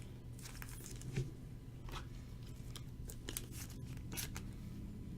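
Trading cards being handled, giving a few faint, brief rustles and clicks.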